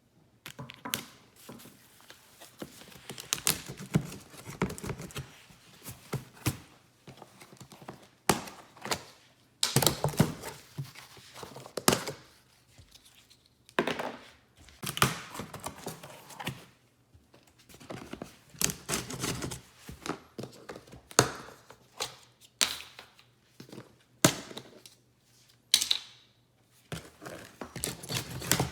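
Cardboard packaging being opened and handled: irregular thunks and knocks of box flaps and contents, with short tearing and scraping as tape and packing are cut and pulled away.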